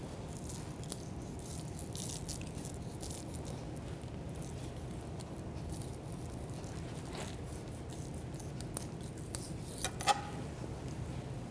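Flexible fillet knife cutting the rib bones away from a side of salmon: faint, intermittent scraping over a steady low hum, with one sharp click about ten seconds in.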